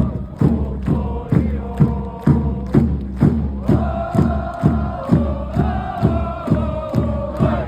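Football supporters chanting together to a steady drum beat, about two beats a second, holding long sung notes that step up in pitch about halfway through.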